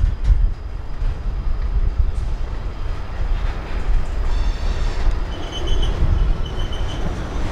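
Canadian Pacific covered hopper grain cars rolling past on the rails, a steady low rumble of wheels and trucks with occasional clicks. A thin high wheel squeal comes in briefly about five seconds in.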